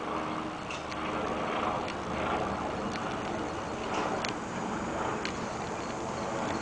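Steady outdoor background noise, with a few faint, short ticks scattered through it.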